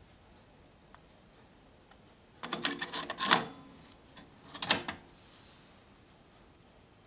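A compact cassette rattling and clicking as it is set into the tape holder of a Philips FC930 cassette deck, then the deck's cassette door pushed shut with a second, shorter burst of clicks a little over a second later.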